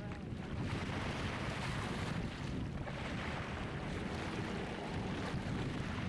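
Small wind-driven lake waves washing onto a gravel shore in repeated swells, with wind buffeting the microphone in a low rumble.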